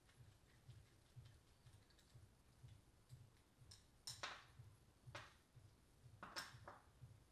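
Near silence broken by a few faint clicks and taps of small metal brake-lever parts and a hex-key tool being handled, with three sharper taps in the second half. A faint low pulse beats about twice a second underneath.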